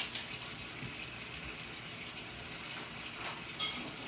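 Kitchen tap running steadily into the sink, with a knock at the start and a brief clink of dishes about three and a half seconds in.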